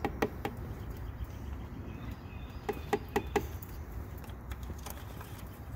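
Light plastic clicks and knocks from handling the oil funnel and the engine's oil filler cap: two near the start and a quick run of four about halfway through, over a steady low background rumble.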